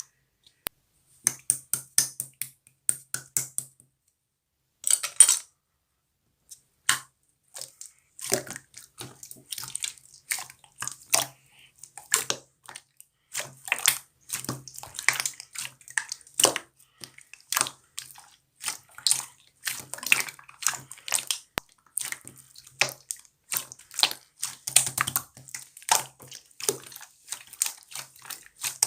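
Clear slime being squeezed and worked by hand, making irregular wet clicks and pops. They come in scattered groups for the first few seconds, then in quick, dense succession.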